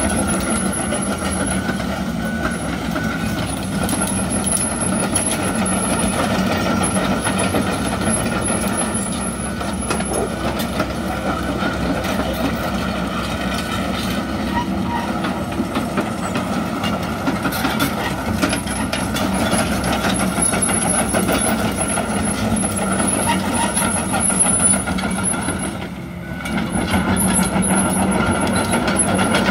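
John Deere 85D midi excavator's diesel engine running steadily under hydraulic load as the machine swings and works its boom and arm, with a steady high tone over the engine hum. The sound briefly drops about three seconds before the end, then comes back up.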